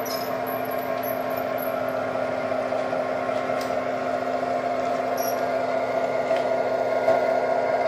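O gauge MTH Premier SD80MAC model locomotive running on the layout: a steady mechanical hum from the motors and wheels on the track, mixed with its onboard diesel engine sound, growing gradually louder.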